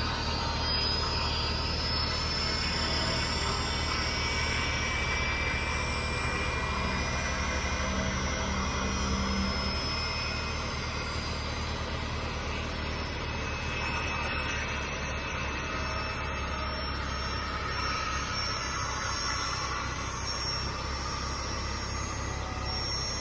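Jet aircraft engines running on an airport ramp: a steady rush with a high turbine whine, over a low steady engine hum.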